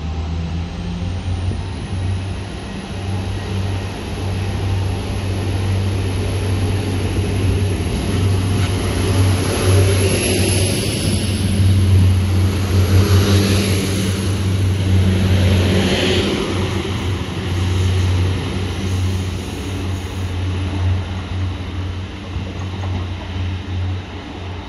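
Transport for Wales Class 175 diesel multiple unit running along the platform and past: a steady low diesel engine drone with a high whine that rises in the first couple of seconds and then holds. The rail and engine noise swells as the coaches go by about halfway through, then eases.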